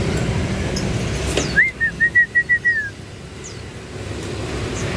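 A caged bird whistles a quick run of about seven clear notes over a little more than a second, the first note rising and the rest short and even. Faint high chirps from other small cage birds sound around it.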